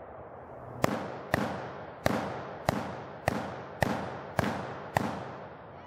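AK-47 rifle fired in semi-automatic, eight shots about 0.6 seconds apart, each followed by an echo that dies away.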